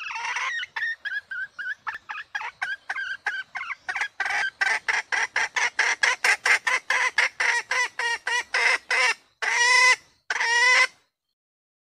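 Red junglefowl hen calling: a run of short calls, about four a second at first, coming slightly faster and louder after about four seconds. The run ends with two longer calls, each about half a second.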